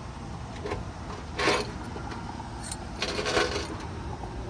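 Metal camp-cooking gear clinking and rattling in a few short bursts, the loudest about a second and a half in, over a steady low background hum.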